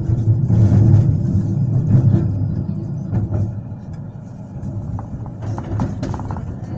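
Inside a moving 71-911 tram: a steady low rumble and hum from the running gear and drive, getting quieter after about three seconds, with scattered clicks and knocks in the last two seconds.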